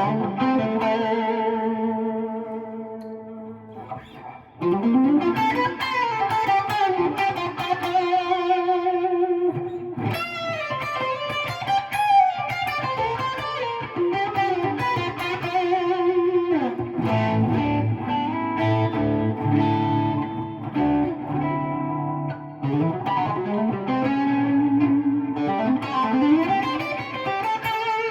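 Gibson R9 Les Paul with Custombucker pickups through a Friedman SS100v2 amplifier at mid-gain, heard through a Bogner 2x12 cabinet. A chord rings out and fades over the first few seconds. After a brief dip, lead lines follow with sustained notes, string bends and vibrato.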